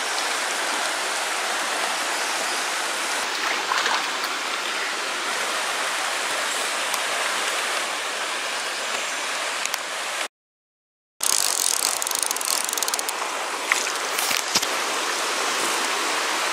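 Mountain trout stream running over rocks and riffles, a steady rush of water. About ten seconds in the sound cuts out completely for under a second, and after it a few short clicks and crackles sit over the water.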